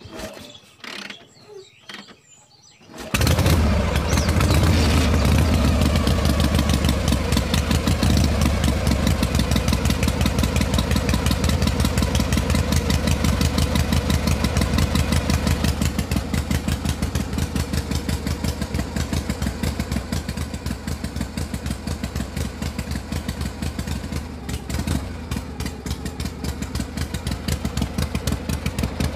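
A few light clicks as the miniature tractor's crank handle is turned, then about three seconds in an engine starts abruptly and runs steadily with a fast, even pulse, easing slightly later on.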